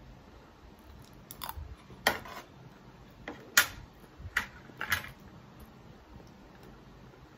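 Sharp clicks and crackles of handling crispy fried chicken wings on a plate, with fork and fingers working the wings. There are about six separate clicks between one and five seconds in.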